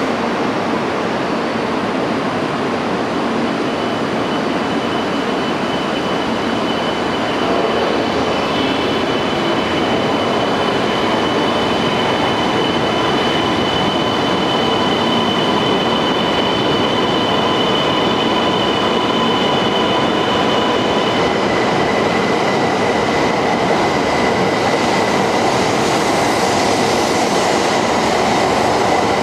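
E2-series Tohoku Shinkansen train moving along the platform: a steady rumble of wheels and running gear. A high steady whine comes in about a quarter of the way through and gives way to a lower whine about three-quarters through.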